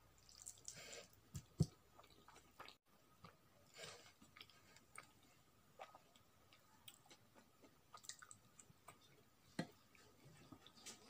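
Faint close-miked eating sounds: a mouthful of rice being chewed with soft wet smacks and mouth clicks, and fingers mixing rice on a plate. The sharpest click comes about one and a half seconds in, another near the end.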